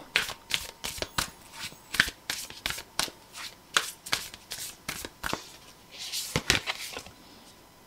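Tarot cards being shuffled and handled by hand: a run of crisp card snaps, two or three a second, then a brief softer sliding rustle about six seconds in.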